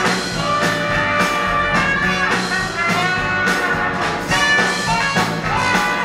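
Live swing band's horn section, with trumpets, saxophone and trombone, playing a brass riff between vocal lines over the band's steady beat.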